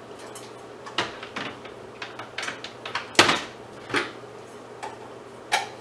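Scattered knocks and clinks of metal pot light housings being handled and set down, about eight in all, the loudest about three seconds in, over a faint steady hum.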